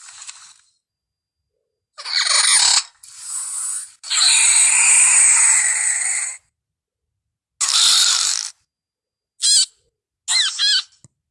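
Compsognathus creature sound effects from the Jurassic Park films: a string of separate shrill chirps and screeches, the longest about two seconds. Short chirps with quick rising-and-falling squeals come near the end, with clean silence between the calls.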